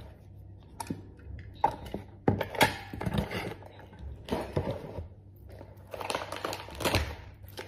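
Hands handling small packaged lock hardware: plastic packaging rustling, with scattered light clicks and knocks, the sharpest about two and a half seconds in.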